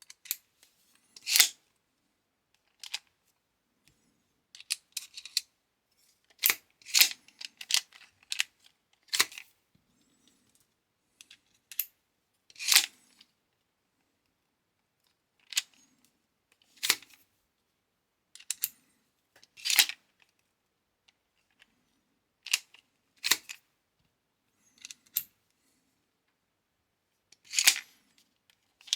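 Irregular sharp clacks and short sliding snaps from a hand tool's mechanism being worked by hand, about twenty in all with pauses between them.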